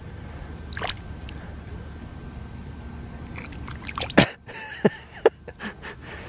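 A hand sloshing and squelching through muddy water in a small flooded hole, with a few sharp splashes about four to five seconds in.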